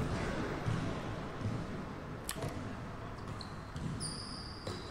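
A basketball bouncing on a hard indoor court with sneakers squeaking, the high squeaks coming in the last second and a half. A single sharp click comes about two seconds in.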